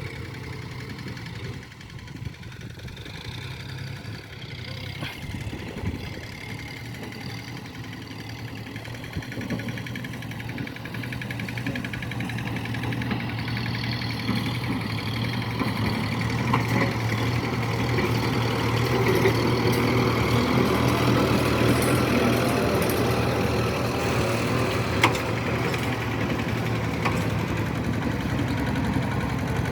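Kubota tractor's diesel engine running steadily, growing louder from about ten seconds in, with a single sharp click near the end.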